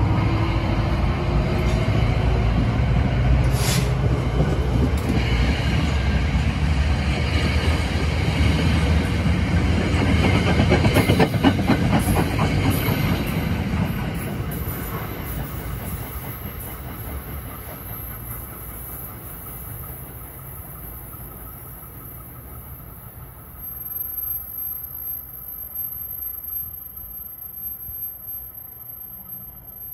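New Jersey Transit commuter train running past the platform and pulling away: a steady rumble of wheels on rail, with a quick run of clickety-clack over rail joints around ten to thirteen seconds in. The rumble then fades steadily to a faint distant sound as the train recedes.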